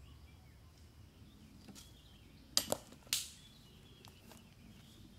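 Three sharp knocks in quick succession about two and a half to three seconds in, the last trailing off briefly, over a faint, quiet woodland background: a thrown disc golf disc clattering through the trees.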